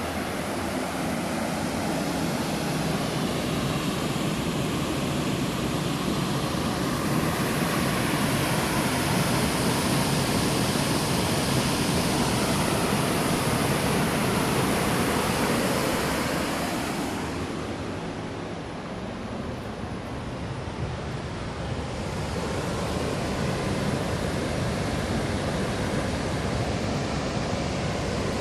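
A loud, steady rushing noise with no pitch to it, of the kind made by surf, falling water or wind. About 17 seconds in, it eases and loses its hiss for a few seconds, then builds back up.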